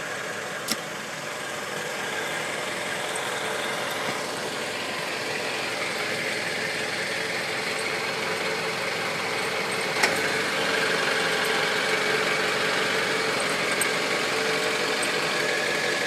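2012 Mazda 6 idling, heard from underneath the car by the exhaust pipe: a steady engine and exhaust noise with a constant hum, growing slightly louder. The owner says it sounds like an old car and blames a loose seal where the pipe joins the muffler. Two short clicks come through, one right at the start and one about two-thirds of the way in.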